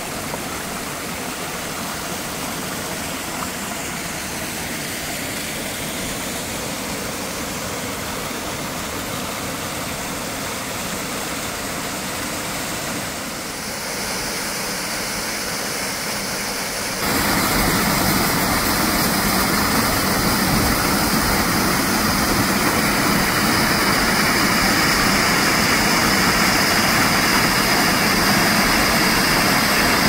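Waterfall rushing steadily, an even roar of falling water that changes abruptly in level and steps up clearly louder about seventeen seconds in.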